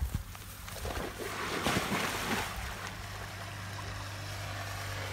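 Water splashing and sloshing as water buffalo wade into a muddy canal, with a louder stretch of splashing about two seconds in. A steady low hum runs underneath and cuts off suddenly near the end.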